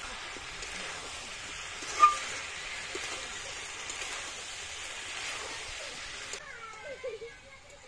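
Chicken and carrots sizzling as they fry in a wok, with one sharp metal clink about two seconds in. The sizzle cuts off suddenly near the end.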